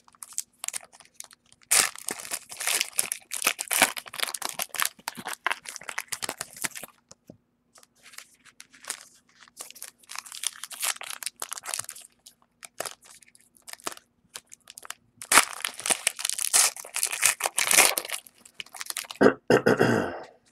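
Trading-card pack wrappers being torn open and crinkled, in several bouts of crackling with pauses between, and a brief fuller rustle near the end.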